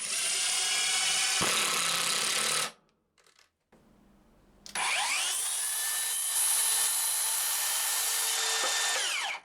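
An electric power tool running under load in wood for a couple of seconds, cut off abruptly. After a short pause, a power tool motor spins up with a rising whine, runs steadily for about four seconds, and winds down.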